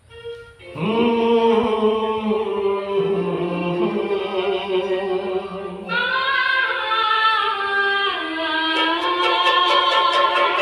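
Music: the slow opening of a Hindi film song, long held choir-like notes that change chord about six seconds in, with light ticking percussion coming in near the end.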